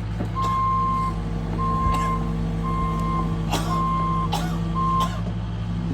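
Heavy machine's backup alarm beeping on one steady tone about once a second, five beeps, over a diesel engine running. A few short knocks are mixed in.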